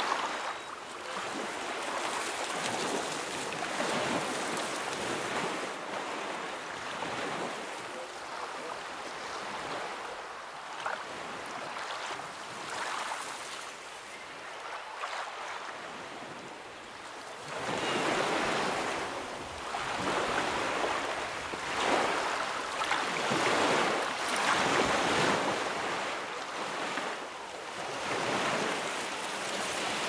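Ocean surf: waves breaking and washing in, a continuous rushing that swells and ebbs. It grows louder just over halfway through, with a surge every couple of seconds.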